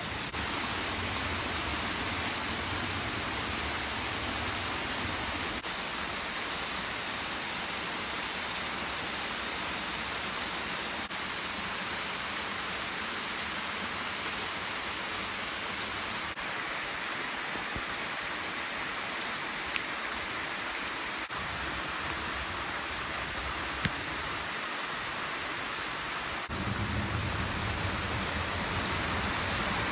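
Mountain stream water rushing steadily over rocks, a constant hiss. It grows a little louder and fuller near the end.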